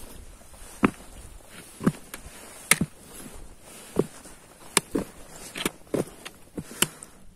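A hiker's footsteps on a rocky mountain trail: short, sharp scuffs and knocks, roughly one step a second, over a faint steady hiss.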